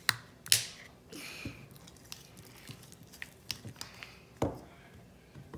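Homemade glue slime being mixed and worked by hand, giving sticky squelches and sharp little snaps and clicks. The loudest snaps come near the start and about four and a half seconds in. The slime is still sticky as the activator works in.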